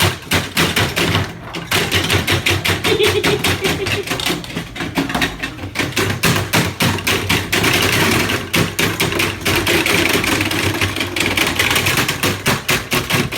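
A young child's voice imitating an old tractor engine, a 1937 Farmall F-30, running after a crank start: a fast, even chugging pulse kept up throughout.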